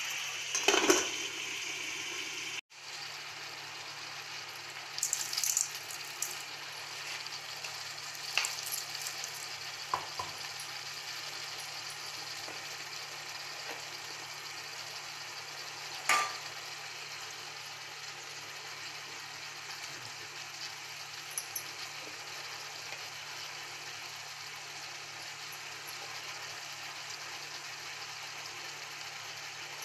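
Blue crab pieces sizzling steadily in an aluminium kadai over the heat. A few sharp clinks and taps come through the sizzle, the loudest about 16 seconds in.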